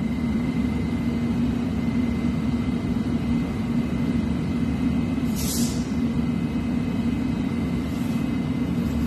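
London Underground train standing at a platform with its doors open, its equipment giving a steady low rumble and hum. A brief hiss comes about five and a half seconds in.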